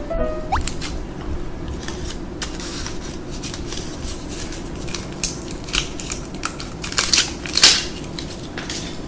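Close-miked handling of a glass bottle of dog wine: scattered clicks and crackles from the bottle and its cap, the loudest about seven and a half seconds in, over a steady low hum.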